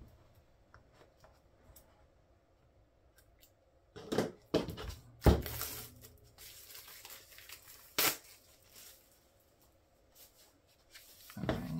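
Plastic shrink wrap being slit with a box cutter and torn off an album, with a few short crinkling rips and rustles; the loudest tear comes about five seconds in and another sharp one near eight seconds.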